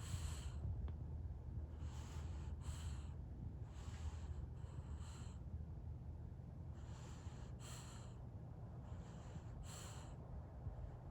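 French bulldog snoring in its sleep: about five snoring breaths, each a rasping draw followed by a stronger whistling snort, roughly every two to two and a half seconds.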